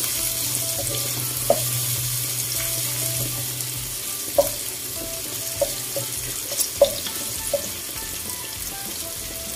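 Pork pieces sizzling as they brown in a wok, stirred with a wooden spatula that knocks sharply against the pan about seven times, mostly in the middle of the stretch.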